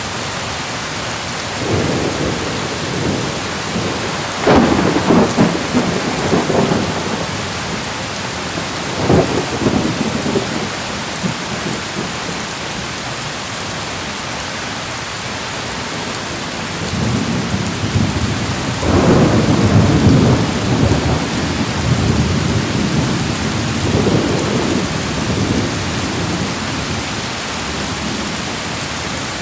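Steady rain falling, with thunder rolling in several times: a sharp clap about four seconds in, another about nine seconds in, and a long rumble past the middle.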